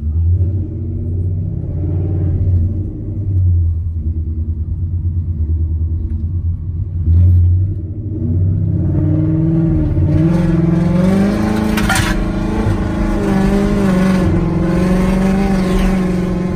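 2018 Mustang GT's 5.0 L V8 heard from inside the cabin, rumbling deep and steady at low speed, then about halfway through pulling under throttle with its note rising and wavering.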